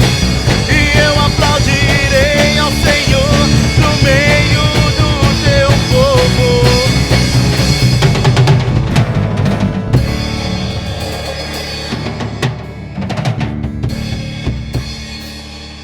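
Drum kit with acoustic guitar and singing, playing the ending of a song. The voice stops about seven seconds in, a few last drum hits follow, and the music rings out and fades.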